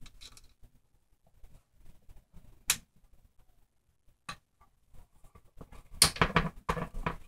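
Plastic and metal parts of an SC10 short course RC truck clicking and rattling as they are handled and fitted together by hand: a sharp click a little under three seconds in, another a bit after four, and a busier run of clicks and rattles around six to seven seconds in.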